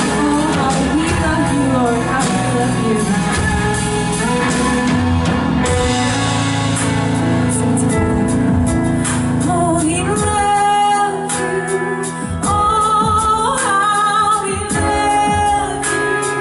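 A live worship band playing a song with singing, a woman's voice prominent. Long held sung notes come through more clearly in the second half.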